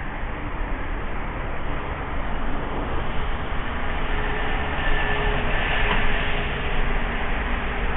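Steady outdoor industrial rumble and hiss, with a faint steady whine joining about four seconds in and fading near the end.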